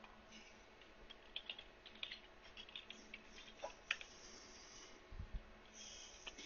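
Faint typing on a computer keyboard: irregular, scattered keystrokes, with a dull low bump about five seconds in.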